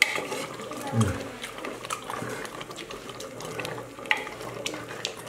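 A ladle stirring goat curry in an open aluminium pressure cooker: scattered clinks and scrapes against the pot, with the wet slop of the thick gravy.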